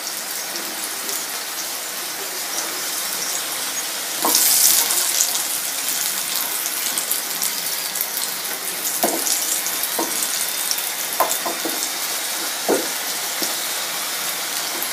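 Taro pieces sizzling in hot oil in a nonstick frying pan while they are turned with a wooden spatula. The sizzle swells for about a second around four seconds in, and the spatula knocks against the pan several times.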